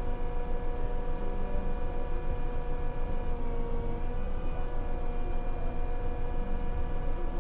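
Large harvest machine running steadily: a low engine rumble under a constant high whine.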